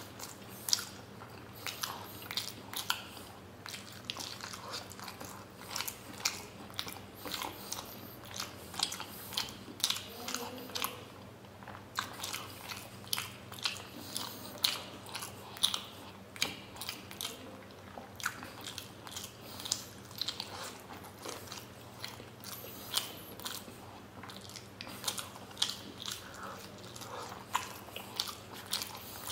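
Close-miked chewing of steamed paneer momos: irregular wet smacks and mouth clicks, one or two strong ones a second, over a faint steady low hum.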